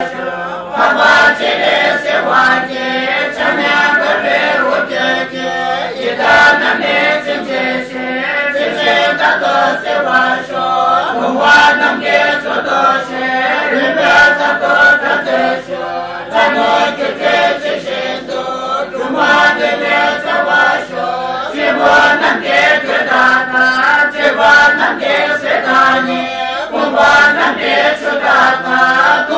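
A congregation of Tibetan Buddhists, mostly women, chanting prayers together from their texts. The many voices go in long continuous phrases with a brief break every several seconds.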